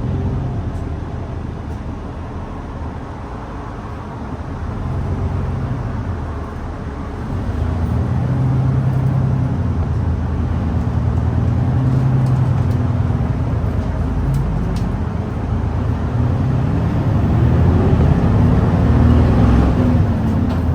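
Diesel-hybrid city bus (Hino Blue Ribbon City Hybrid) heard from inside the cabin, pulling hard. The engine note shifts in steps and grows louder about a third of the way in, then rises near the end, over road and wind noise.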